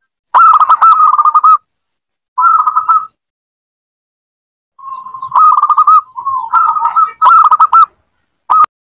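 Zebra dove (local Indonesian perkutut) singing: about five loud phrases of fast, rippling coo notes at one steady pitch, with short pauses between them and a brief last phrase near the end.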